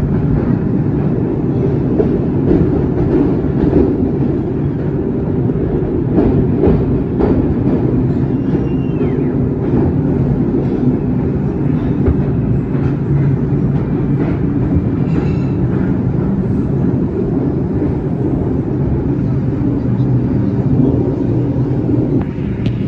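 A New York City Subway 4 train running, heard from inside the car: a steady, loud rumble of wheels on rail under a low motor hum, with a brief high squeal that falls in pitch about eight seconds in.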